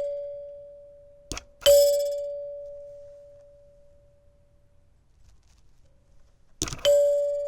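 Heath Zenith electric door chime, run off a 9 V battery, its plunger striking a tone bar that has a spring laid on it. Twice, about one and a half seconds in and again near the end, a short knock is followed by a single clear ringing tone that fades over a few seconds.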